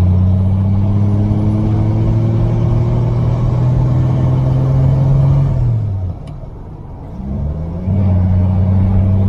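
1949 Rover P3's engine pulling steadily with its note slowly rising, heard from inside the car. About six seconds in the revs fall and the sound quietens for a couple of seconds, as in a change up a gear, then it picks up again at a lower pitch.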